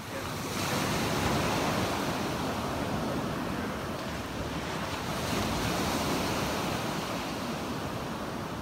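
Small sea waves breaking and washing up a beach, surging louder about half a second in and again about five seconds in, with wind buffeting the microphone.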